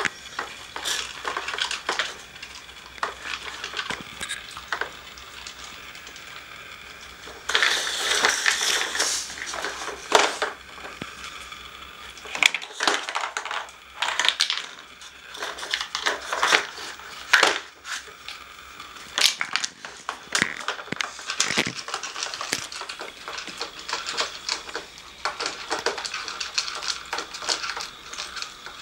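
Hard plastic parts of a Nina Ottosson dog treat puzzle clacking, rattling and scraping as a dog noses and paws at it, knocking its sliders and bone-shaped pieces about. Irregular knocks throughout, with a denser run of scraping about eight seconds in.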